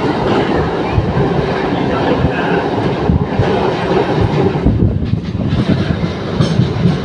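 Train running along the track, heard from inside a moving carriage: a steady loud rumble of wheels on rails with many irregular knocks.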